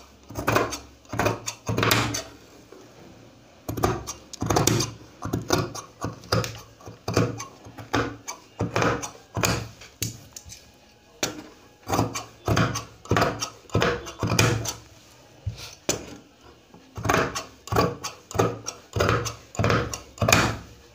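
Large tailor's scissors snipping through four layers of folded brocade dress fabric, a steady run of cuts at about two a second, with a brief pause twice.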